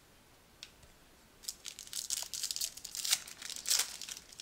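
A foil hockey card pack's wrapper being torn open and crinkled in the hands: a dense crackling that starts about a second and a half in and runs nearly to the end.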